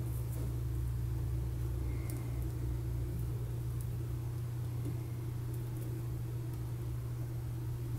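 Steady low electrical-sounding hum of room background, with a few faint light clicks as small plastic Mega Bloks figure pieces are handled.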